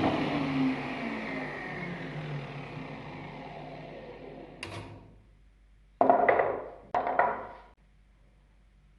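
An electric power tool spinning down after being switched off, its pitch falling and fading over about five seconds. Three short bursts of noise follow, about a second apart.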